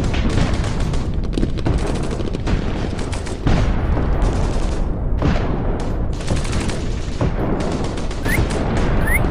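Airsoft guns firing in rapid bursts, a dense run of sharp cracks and rattles, a little louder from about halfway through.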